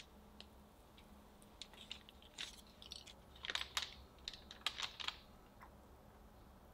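Steel pizza-cutter wheel rolling and pressing through a chilled sheet of cookie dough on parchment paper: a quiet run of irregular clicks and scratchy ticks, busiest from about a second and a half to five seconds in.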